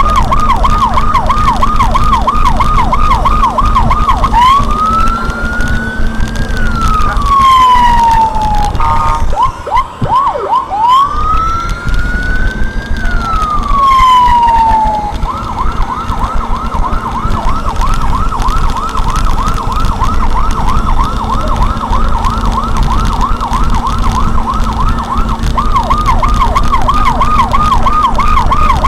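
Electronic siren fitted to a Jeep Wrangler, cycling through its tones: a fast yelp, then two slow wails that rise and fall, then a much faster warble for about ten seconds, and the yelp again near the end. A steady low rumble of the moving vehicle runs underneath.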